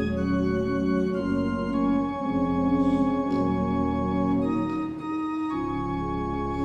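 Organ playing offertory music: slow, held chords that change every second or so.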